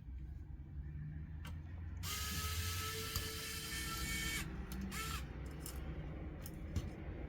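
A small electric screwdriver whirring, with a motor-and-gear whine, for about two and a half seconds, then a short second burst as it spins up and down. A few light clicks come before and after.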